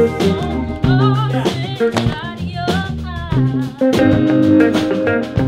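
Funk band playing a groove: electric guitars, bass guitar and drum kit, with a woman singing the melody over it.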